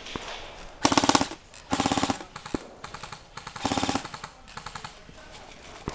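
Airsoft gun firing three short full-auto bursts of rapid, evenly spaced shots, about a second in, near two seconds and near four seconds, with fainter shots between them.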